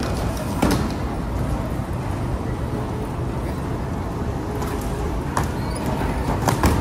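Airport baggage carousel running with a steady low rumble. A few sharp knocks come through, the loudest near the end, as suitcases drop onto the moving metal slats.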